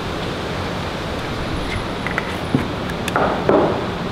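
Steady rushing ventilation noise of an indoor shooting range, with a few faint clicks about two seconds in.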